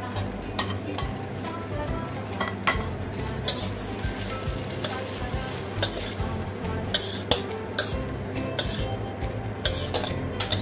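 Beef and broccoli sizzling in a pan while a spatula stirs it, clicking and scraping against the pan at irregular intervals.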